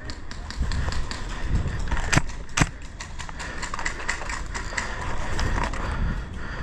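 Scattered small clicks and knocks of a player moving with gear over a low rumble, with two sharper cracks a little over two seconds in.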